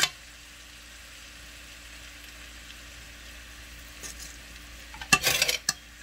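Jollof rice sizzling faintly in a hot pan as a metal fork stirs and fluffs it. There is a sharp metal tap at the start and a short burst of fork scraping and clinking against the pan about five seconds in.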